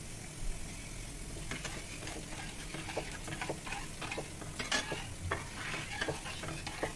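Metal spatula stirring and scraping a thin semolina-and-water mixture in a frying pan on the gas, starting about a second and a half in, with irregular scrapes and clicks of the spatula against the pan.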